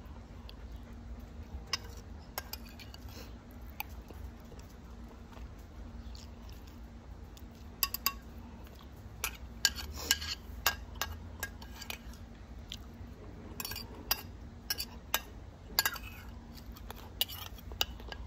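Metal spoon clinking and scraping against a glass plate, in scattered sharp clinks that come more often in the second half.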